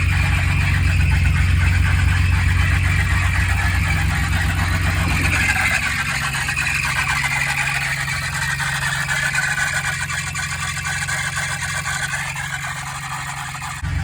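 BMW E30 engine idling with its alternator belt squealing continuously, a high wavering squeal over the engine's steady hum. The squeal comes from the belt being too slack. The engine's low hum fades somewhat about halfway through.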